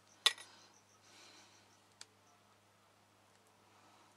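Metal tweezers clicking against a board as a cut-out decal is picked up: one sharp click about a quarter second in, then a fainter tick about two seconds in, over a faint steady hum.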